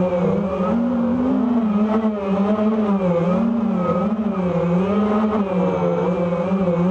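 FPV racing quadcopter motors and propellers buzzing, recorded on board. The pitch rises and falls smoothly and continually as the throttle is worked through the turns.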